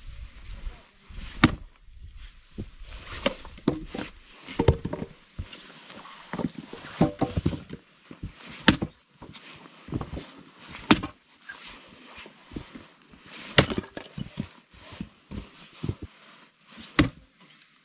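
Axe blows chopping into a firewood log: about a dozen sharp knocks at an uneven pace, the loudest about a second and a half in and again around nine, eleven and fourteen seconds.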